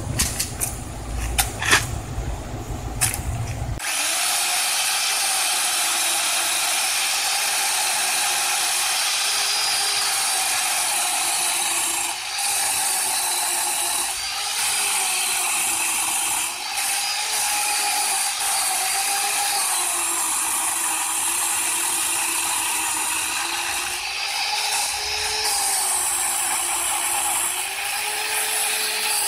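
Worx WG305.1 14-inch electric chainsaw running under load as it cuts through a log, its motor whine wavering in pitch as the chain bites into the wood and easing off briefly twice. The first few seconds carry a heavy low rumble and a few sharp knocks.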